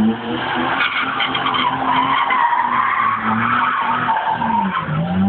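BMW 528i's straight-six engine held at high revs while the rear tyres spin and slide on loose dirt. The revs dip and pick up again near the end.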